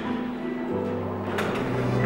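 Background music with sustained notes over a low bass line that shifts about two-thirds of a second in, with a short click partway through.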